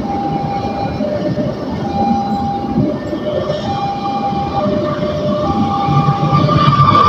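Passenger train rolling past, steel wheels on the rails, under a two-tone warning alarm that alternates high and low about once a second. Near the end a low engine sound and a steady higher tone swell as an oncoming train with its headlight on approaches.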